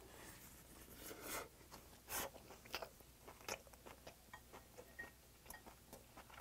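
Close-miked chewing of a mouthful of rice topped with an oyster: soft, irregular wet smacks and clicks of lips and mouth, with a couple of louder ones in the first few seconds.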